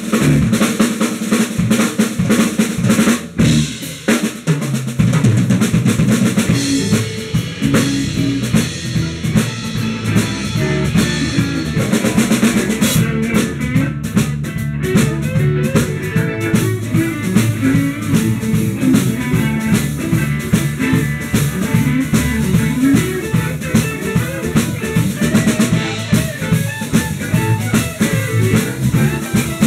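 Live blues band playing a shuffle in A: drum kit, electric bass, electric guitars and a Yamaha Motif XS8 keyboard, with the drums prominent. The deep bass comes in about five seconds in.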